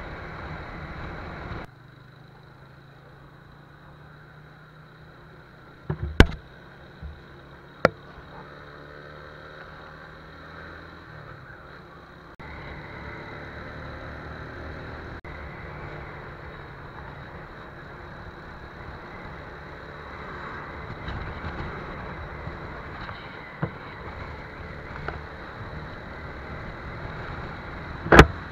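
TVS Apache RTR 180 single-cylinder motorcycle engine running steadily under way, with wind and road noise on the rider's camera. A few sharp knocks break through, the loudest about six seconds in and just before the end.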